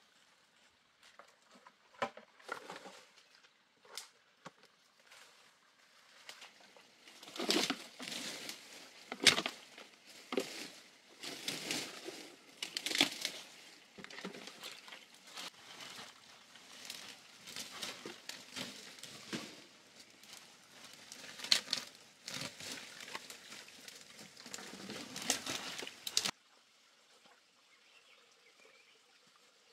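Rustling and crackling of dry grass, leaves and brush being trampled and pushed aside, in irregular bursts that stop abruptly near the end.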